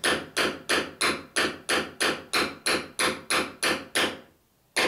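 Ball-pein hammer tapping a small nail into the top of a clinker plank's half lap at the transom, in quick, even light strikes, about three or four a second. The strikes pause briefly near the end and then start again.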